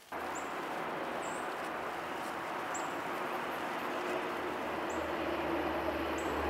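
Steady outdoor rushing noise with a low rumble underneath, and a small bird chirping faintly, a short high note about five times.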